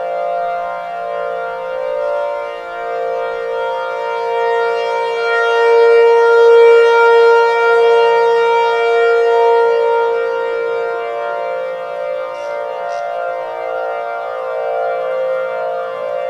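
Siren synth: many layered outdoor warning siren recordings (Federal Signal Thunderbolt and T-128/2T22) sounding together as one held chord of steady tones. It swells louder around the middle and eases back.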